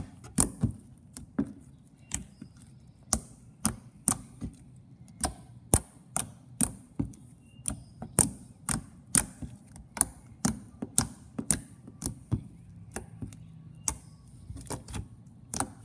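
Fluffy slime mixed with icy slime and fake snow being squished and stretched by hand, giving sharp clicks and pops, irregular, about one or two a second.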